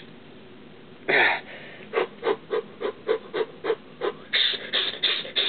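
A man's quick, rhythmic breathing in short sharp puffs, about four a second, with one longer breath about a second in. He is breathing through the pain of rolling a heavy dumbbell along his shin.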